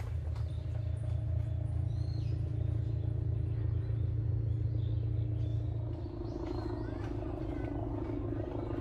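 A steady low mechanical rumble with a faint even hum, like a running engine or machine.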